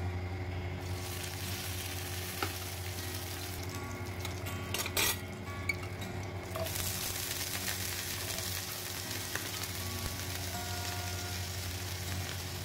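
Food sizzling as it fries in hot oil in a pan while it is stirred. The sizzle swells about a second in, eases off midway and comes back, with a sharp clink of the utensil against the pan about five seconds in.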